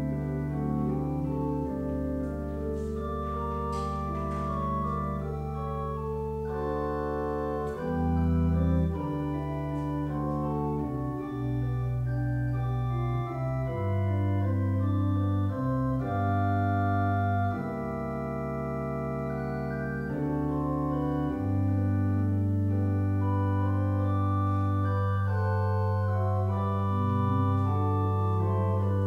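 Church organ playing a postlude: slow, sustained chords over a deep held bass, the harmony changing every second or two.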